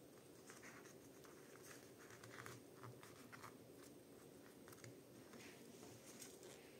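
Near silence, with faint rustling of paper and cardboard as a paper flap is pressed and folded down by hand.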